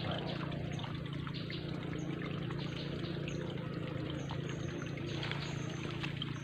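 Steady trickle of running water, with a low steady hum beneath it.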